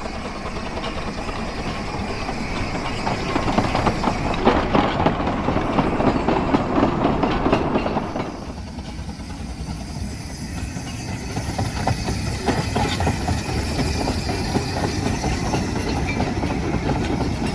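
Two-foot gauge steam locomotive and its coaches running past, wheels clicking over the rail joints. The sound shifts abruptly about eight seconds in and is slightly quieter after.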